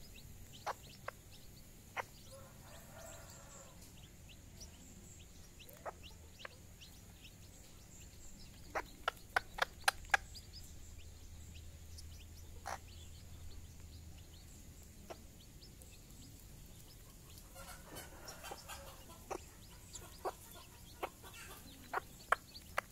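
Hen and chicks feeding: the hen gives low, murmuring clucks in two short spells, a few seconds in and again near the end. Short sharp clicks are scattered throughout, with a quick run of them about nine to ten seconds in.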